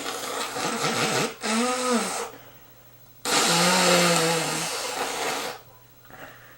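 A person blowing their nose twice, two long noisy blows, each with a low honking tone; the second blow, about three seconds in, is the louder.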